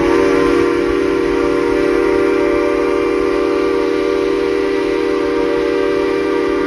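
Train whistle blowing one long, loud, steady blast, a chord of several pitches held without change.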